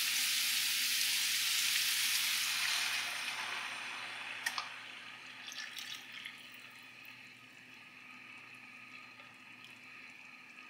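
Hot pan of sautéed vegetables and lamb sizzling loudly, the sizzle dying away over the first few seconds as cold lamb broth is added. After that, broth is poured from a jug into a plastic measuring cup, a quiet liquid trickle with a few light knocks.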